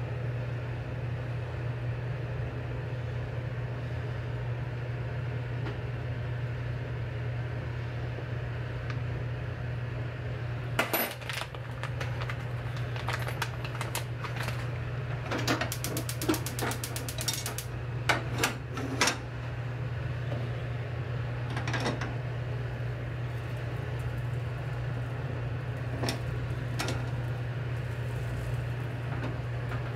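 Steady low hum of a kitchen appliance with dishes and utensils clinking over it. In the middle comes a quick run of light, even taps, then a few sharp clinks.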